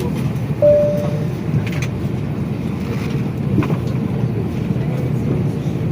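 Steady low rumble of an airliner cabin's ventilation and ground power during boarding, with a few light clicks and knocks. A single short tone rings and fades about half a second in.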